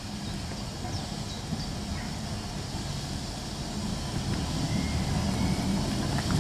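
BR Fairburn 2-6-4 tank steam locomotive approaching slowly on the adjacent track: a low rumble that grows steadily louder.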